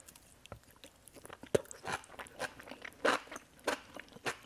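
Close-up mouth sounds of eating enoki mushrooms in thick gochujang sauce: chewing and slurping the strands. It is a run of wet clicks and smacks, sparse at first and louder from about a second and a half in.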